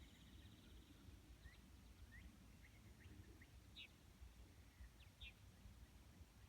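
Near silence with faint birdsong: a rapid high trill that fades out about a second in, then scattered short chirps and quick sweeps, over a low rumble. The siren is not sounding.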